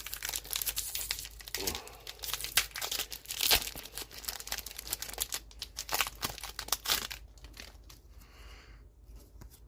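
Foil trading-card booster pack wrapper crinkling and tearing as it is handled and opened: a dense, irregular crackle that dies down about seven seconds in.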